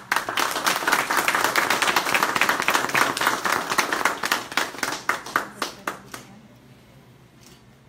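A small group applauding: dense clapping that thins out to a few last separate claps about six seconds in.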